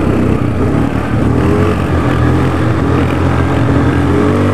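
Yamaha ATV engine running steadily while riding along a trail, its pitch rising and falling a little with the throttle.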